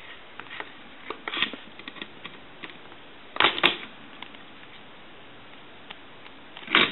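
Small plastic parts of an AT&T 210 Trimline telephone being pried apart and handled: scattered light clicks, then two louder scraping bursts, one about three and a half seconds in and one near the end. The parts are stuck together by dried spilled liquid.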